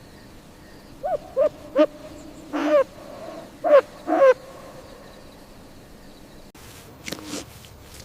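An owl hooting: six hoots in about three and a half seconds, a run of short ones and two longer ones, each rising and falling slightly in pitch. A short rough sound follows near the end.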